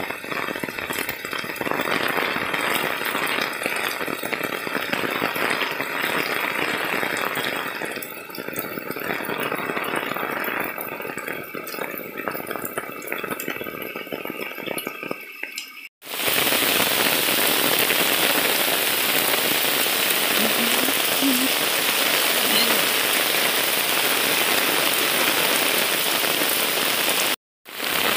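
Heavy monsoon rain falling, uneven at first, then after a sudden break about halfway through a steady, even hiss of rain that drops out briefly once more near the end.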